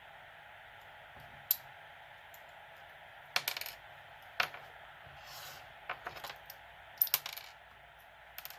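Small metal lock pins clinking and rattling as they come out of a gutted pin-tumbler lock onto a hard surface: about six sharp metallic clicks and short rattles, scattered, over a steady background hiss.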